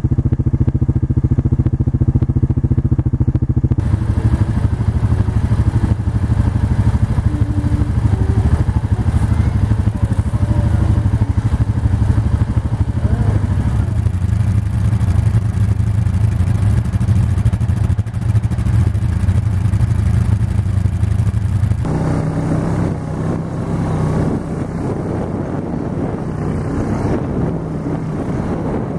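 Small vehicle engine running steadily close by, with more rushing noise joining about four seconds in and its pitch shifting about twenty-two seconds in, as on a ride.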